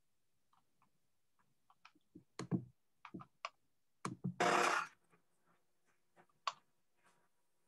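Faint scattered clicks and knocks of a computer mouse and desk being handled, with a half-second burst of rushing noise about four and a half seconds in, the loudest sound here.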